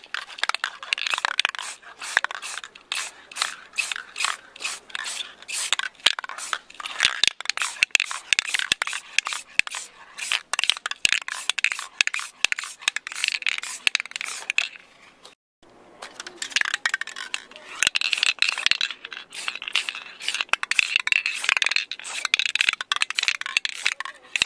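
Aerosol spray-paint can in use on plastic car interior trim: the mixing ball rattling inside the can and the hiss of spraying, in quick irregular strokes, in two spells split by a short break about 15 seconds in.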